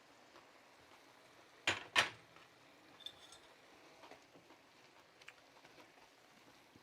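Two sharp clinks of kitchen utensils or cookware, about a quarter second apart near two seconds in, followed by a few faint small clicks.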